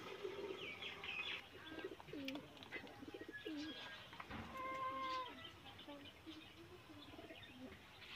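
Domestic pigeons cooing: a string of soft, low coos, with one longer, higher call of steady pitch about five seconds in.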